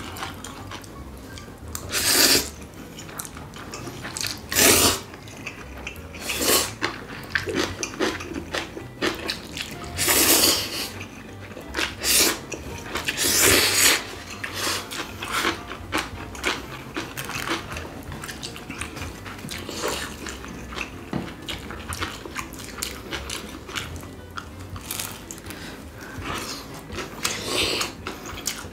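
Close-miked eating of cold spicy bibim noodles: several loud slurps, each about a second long, between chewing and small clicks of chopsticks and spoons against ceramic bowls.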